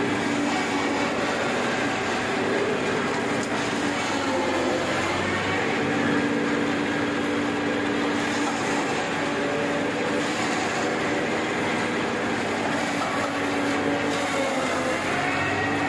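Falcon silage baler running: steady machine noise of its conveyor and baling chamber taking in chopped green fodder, with a constant low hum.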